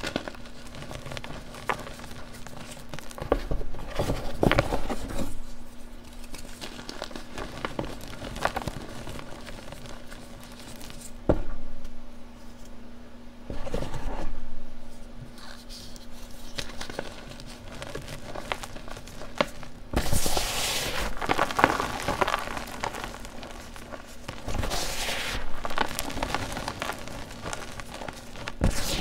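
Blocks of gym chalk crushed and crumbled by gloved hands in a tub, with irregular crunches and crackles of breaking chalk and powder. There are two louder stretches of crunching, about two-thirds of the way through and again near the end, over a faint steady hum.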